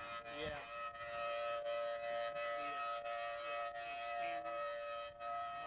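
Outdoor civil-defense warning siren sounding a steady chord-like tone that is held throughout, a tornado warning signal.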